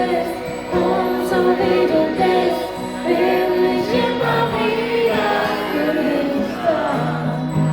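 Music: a German-language pop song with sung vocals over a steady accompaniment.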